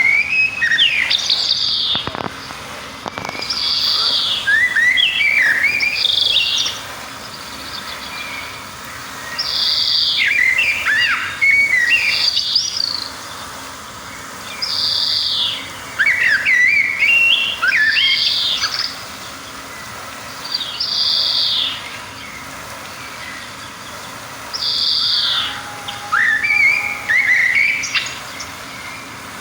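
Songbird singing in repeated phrases of a few seconds each: every phrase opens with a high burst and breaks into quick, jumping warbling notes, with short pauses between phrases, about five in all.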